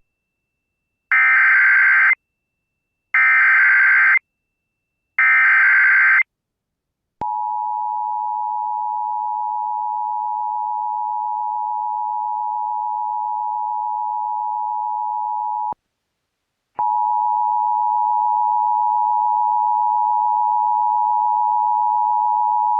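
Start of an Emergency Alert System alert: three one-second bursts of the screechy digital SAME header, each followed by a pause, then the steady two-tone attention signal for about eight seconds. After a one-second break a second, slightly hissier two-tone attention signal begins. Together they announce a tornado warning.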